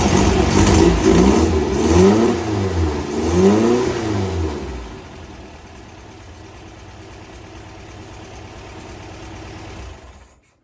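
Air-cooled VW flat-four engine of a Meyers Manx dune buggy revving in a few throttle blips that rise and fall, then settling to a quieter steady idle. The sound cuts off abruptly just before the end.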